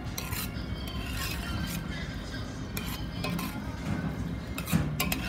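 Metal slotted spoon stirring chopped vegetables in a stainless steel pot, scraping and clinking against the pot's bottom and sides, with a cluster of louder clinks near the end.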